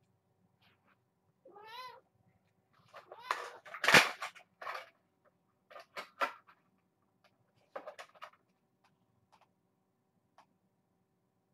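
Kittens mewing several times, some calls wavering in pitch, with a sharp knock about four seconds in, the loudest sound.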